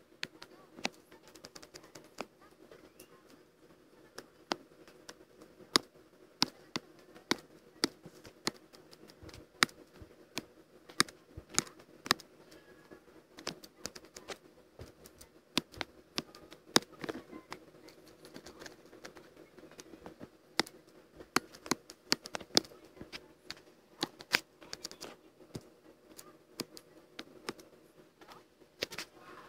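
Irregular sharp clicks and taps of work at a computer while drawing, scattered unevenly, over a steady low hum.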